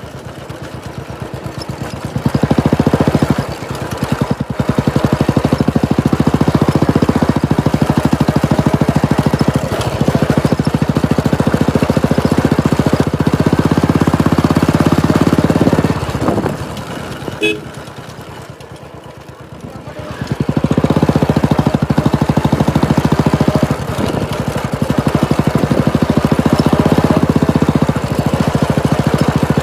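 Royal Enfield Classic 350's single-cylinder engine running loud through a Red Rooster aftermarket exhaust while ridden, with the throttle opened and closed: the exhaust note eases off several times, drops away for a few seconds just past the middle, then comes back up.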